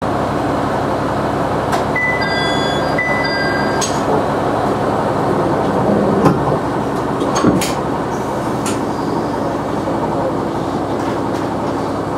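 KiHa 100 diesel railcar idling at a platform, heard from the cab: a steady engine rumble. A two-tone electronic beep sounds twice about two seconds in, and there are a few sharp clicks.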